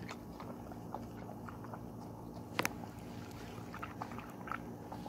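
Husky-schnauzer mix dog chewing and smacking its lips over watermelon, with scattered small wet mouth clicks and one sharp click a little past halfway.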